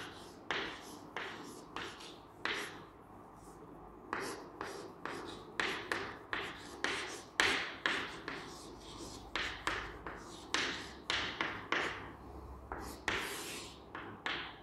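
White chalk writing on a chalkboard: an irregular run of sharp taps and short scrapes as a word is written, with a longer scraping stroke near the end.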